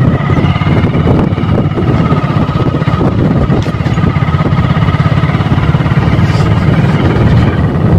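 A vehicle engine running steadily while travelling: a loud, even low drone with a faint steady whine above it.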